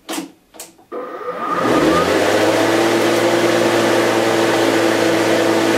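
Mountfield MC 380 LI cordless lawnmower starting up. Two clicks from the handle controls are followed about a second in by its electric motor and blade spinning up to a steady whir, which then runs at full speed.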